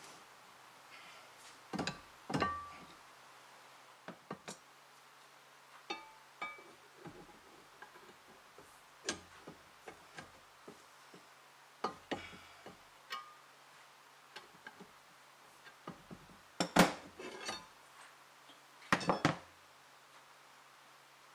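Steel wrenches and a socket bar clinking and clanking against the cast-iron handwheel and top nut of a vintage book press as the nut is broken loose and the handwheel removed. The hits are scattered and some ring briefly. The loudest clanks come about 17 and 19 seconds in.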